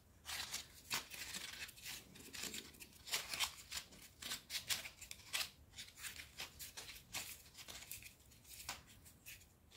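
Faint paper floral tape crinkling and crackling as it is stretched and wound around a flower's stem wire: short irregular crackles, a few a second.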